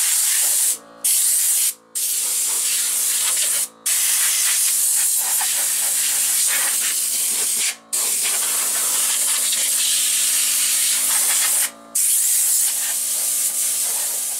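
Compressed air hissing from the nozzle of a coiled air hose fed by an onboard Viair compressor, in long blasts cut by short breaks as the trigger is let go. A steady hum runs under the hiss from about a second in.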